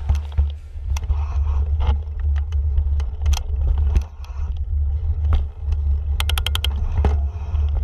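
Mountain bike rolling over rough dirt and concrete trail, heard from a handlebar-mounted camera. Wind and vibration make a steady low rumble on the microphone, mixed with knocks and rattles from the tyres and bike over the bumps. A short run of rapid ticks comes about six seconds in.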